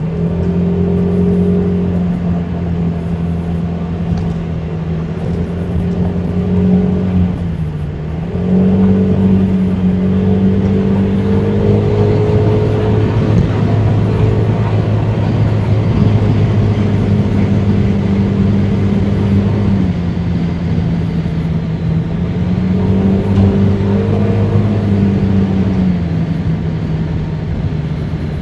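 Honda Forza 300 scooter's single-cylinder engine running on the move, its pitch holding steady between changes in throttle. The pitch steps up near the start, dips briefly about eight seconds in, drops again around twenty seconds, rises a few seconds later and falls back near the end, over steady wind and road noise.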